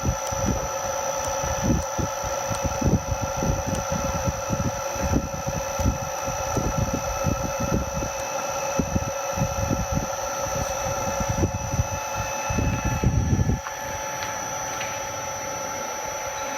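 Electric motor running on a variable frequency drive, with a steady high whine of several tones. Uneven low rumbling buffets go with it until they stop abruptly about three seconds before the end, leaving the whine and a hum.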